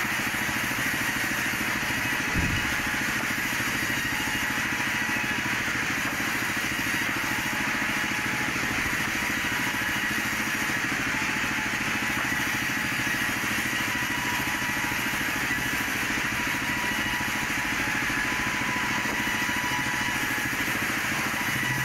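Industrial vertical band saw running steadily while a teak log is fed through the blade, a constant mechanical hum with a high steady whine. A single knock about two seconds in.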